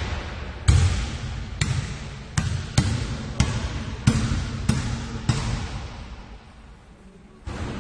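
A basketball dribbled on a hard floor, with about eight irregularly spaced bounces, each trailed by a hall-like echo. The bounces pause for about two seconds near the end.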